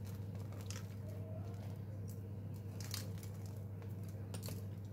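Faint, scattered light ticks as crushed nuts are sprinkled over a chocolate-spread pizza on a parchment-lined tray, over a steady low hum.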